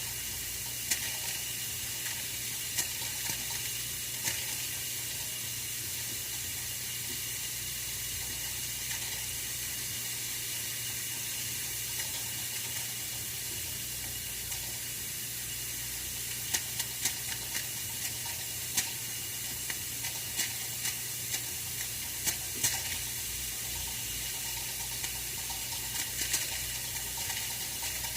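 Oil-filled radiator heater running: a steady hiss with a low hum, and irregular small sharp ticks and crackles, a few early and more in a bunch over the second half.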